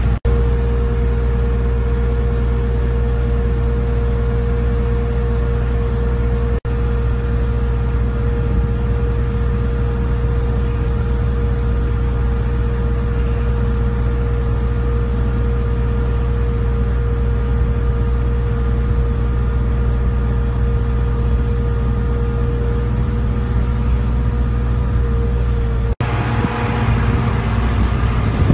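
The Cummins QSB5.9 turbodiesel of a Tadano GR300XL-1 rough-terrain crane running steadily as the boom is worked, with a steady mid-pitched whine over the engine. The sound cuts out for an instant twice, about six and a half seconds in and near the end.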